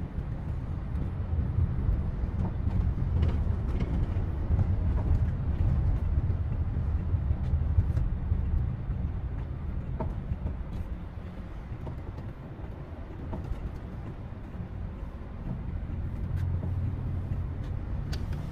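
Engine and road rumble heard from inside the cabin of a moving Toyota HiAce Premio van. It is louder through the first half and eases off somewhat in the second.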